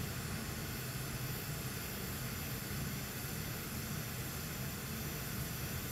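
Steady hiss of air from a hot air rework station blowing at raised airspeed onto the SSD board, reflowing a reballed chip until it settles onto its pads.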